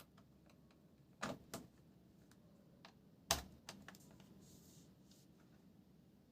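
A handful of sharp clicks and taps from a laptop being handled: two close together about a second in, then the loudest about three seconds in, followed by a few lighter ones.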